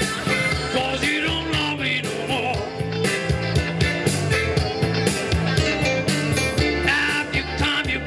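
Live rock band playing, with a steady bass and drum beat under a wavering lead melody.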